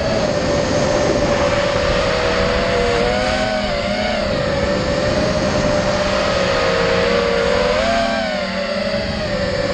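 FPV racing drone's electric motors and propellers whining steadily, several close tones together, with the pitch wavering up and down as the throttle changes.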